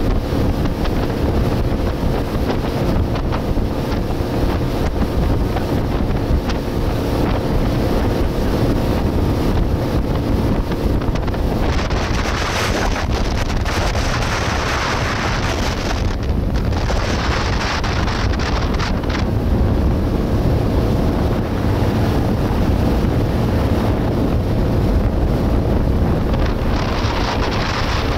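Motorboat under way: a steady engine drone under the rush of water along the hull, with wind buffeting the microphone. The rushing hiss grows louder for several seconds around the middle.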